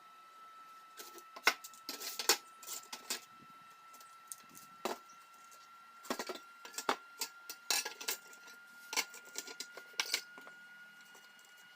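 Irregular light metal clinks and taps, as of small steel parts being handled and set down, over a faint steady high tone.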